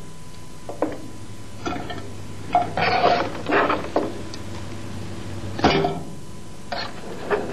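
Browned bones and vegetables being moved from a metal roasting tray into an aluminium stockpot: a series of irregular knocks, clatters and scrapes, busiest a few seconds in, with a brief metallic ring, over a steady low hum.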